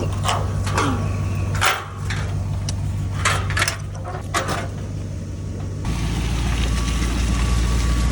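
A vehicle engine running steadily at a low rumble, with several sharp knocks and rattles over it. About six seconds in it gets louder and fuller, as if the engine is put under load.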